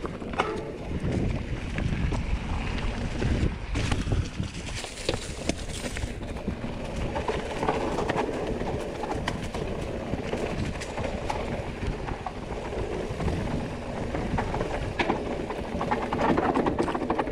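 Mountain bike rolling down a rocky trail: tyres crunching over stones, with the chain and frame rattling in a steady run of short knocks.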